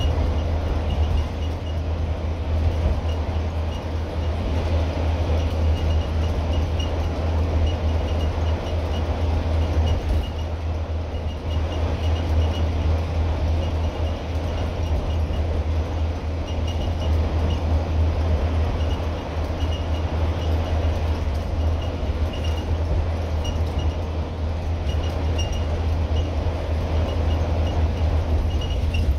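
Scania N230UD double-decker bus's five-cylinder diesel engine droning steadily at cruising speed, heard from the upper deck over road noise, with light ticking rattles that come and go.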